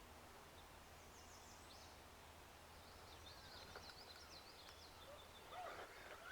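Near silence with faint birdsong: quick, high chirps and trills about a second in and again from about three to five seconds, over a quiet outdoor hiss.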